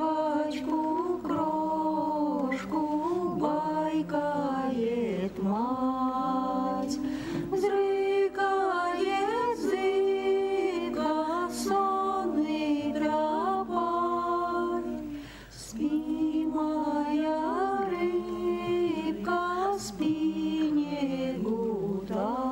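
Voices singing unaccompanied, a slow choral song in held, gliding notes, with a short break about fifteen seconds in.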